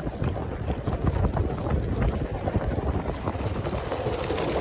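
4x4 vehicle driving over a rough gravel desert track: a steady rumble of engine and tyres with many small knocks and rattles.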